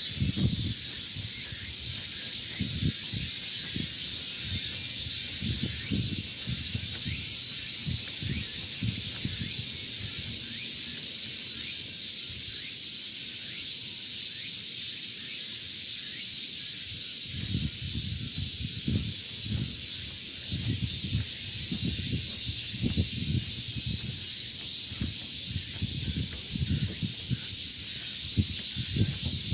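Summer forest insects, such as cicadas, droning in a steady high-pitched chorus. Wind buffets the microphone in gusts of low rumble, more often in the second half.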